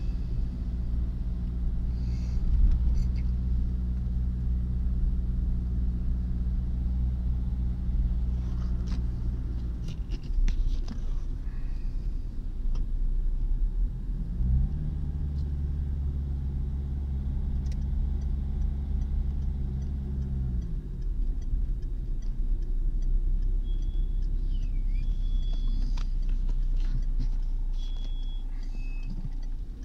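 Car engine and tyre rumble heard from inside the cabin while driving. The engine holds a steady note for about the first ten seconds and eases off. Around halfway it picks up again with a quick rise in pitch, runs steadily for about six seconds, then drops back to the low road rumble.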